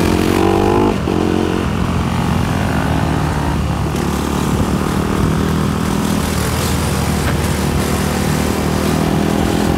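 Honda sport quad's engine running under throttle as the rider lifts the front wheels into a wheelie, with two short revs in the first second and a half, then a steady drone.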